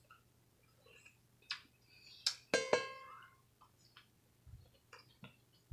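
Quiet eating sounds from biting and chewing a Taco Bell taco: scattered small crunches and clicks, with one sharp clink that rings on briefly about two and a half seconds in.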